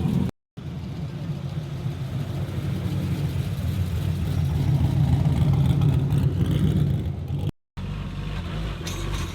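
Car engine and exhaust running with a low, steady rumble that grows louder over several seconds and then eases off. The sound drops out completely twice, briefly.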